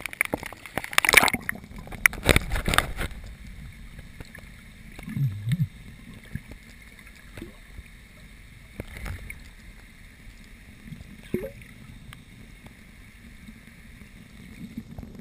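Water splashing and slapping around the camera at a choppy lake surface, then a muffled underwater hush once it goes under, with a short low burble and a few dull knocks.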